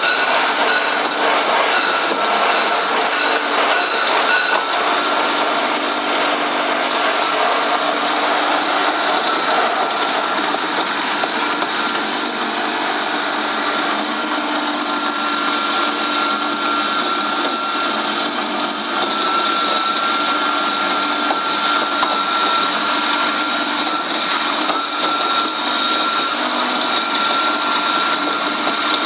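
Stainless-steel poultry bone paste grinder running steadily under load: a continuous motor-and-mill whine with a steady high tone while it grinds bone into paste.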